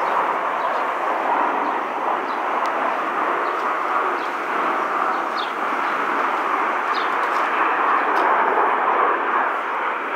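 Steady distant roar of Blue Angels jet aircraft, with a few short bird chirps over it.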